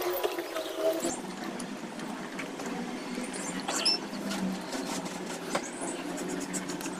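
Close-miked eating sounds: chewing and wet mouth noises made of many small scattered clicks and smacks. Near the end comes a bite into a soft chocolate bun.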